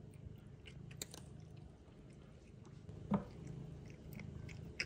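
A cat crunching a hard dental treat (a Greenies treat) taken from a hand: a series of crisp crunches, the loudest about three seconds in and another near the end.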